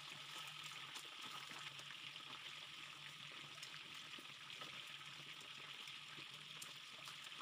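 Chicken wings deep-frying in hot oil in a wok: a faint, steady sizzle with scattered crackles and pops, over a low steady hum.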